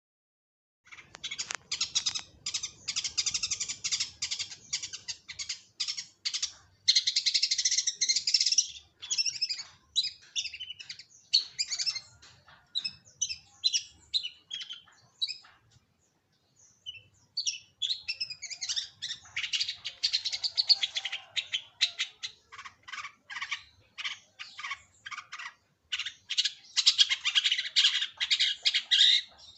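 Long-tailed shrike (cendet) singing: long runs of rapid, harsh, scratchy chattering notes, broken by a short pause about halfway through.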